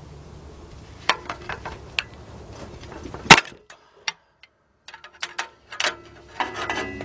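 Hand tools clicking and clinking against the metal of an exhaust clamp under a vehicle, in irregular taps, with one sharp loud metal clank about three seconds in.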